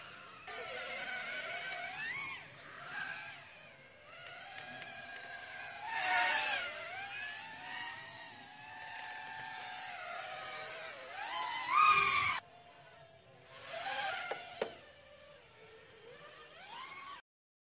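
Racing quadcopter drones whining from their motors and propellers, the pitch rising and falling as they throttle and fly past. The loudest passes come about six and twelve seconds in. The level drops suddenly just after the second pass, and the sound cuts off shortly before the end.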